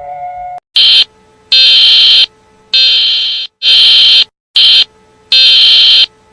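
Emergency alert alarm tone sounding in loud, harsh, high-pitched blasts, six of them with uneven lengths and gaps, like a fire alarm horn. It follows a steady two-note tone that cuts off about half a second in.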